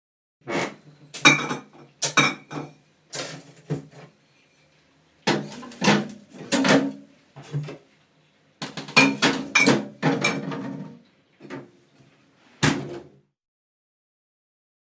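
Glass bottles being handled: groups of clinks and knocks, some with a short glassy ring and a dull thud beneath.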